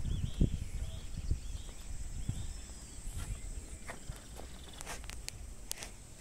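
Quiet outdoor ambience. There are short, high, arching chirps during the first couple of seconds and a few thin clicks near the end, over a low rumble with occasional soft knocks.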